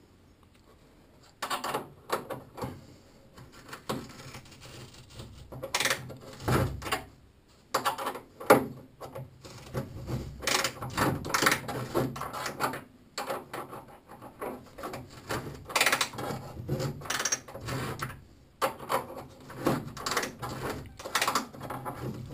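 Ratchet wrench worked back and forth in short strokes, its pawl clicking on the return swings, turning a homemade counterbore cutter that scrapes as it cuts a spot face. The clicking and scraping start about a second and a half in and continue in irregular bursts.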